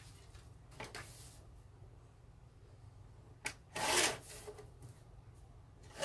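Paper being handled off to the side: a faint rustle about a second in, then a click and a short, louder scraping rub of a sheet sliding about four seconds in, with another rub at the very end.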